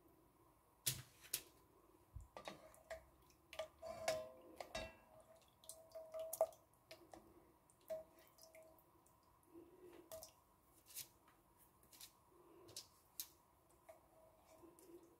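Slotted spoon tapping and scraping in an enamelled pot of sugar syrup as soaked gulab jamuns are lifted out, with syrup dripping. Scattered soft clicks and taps.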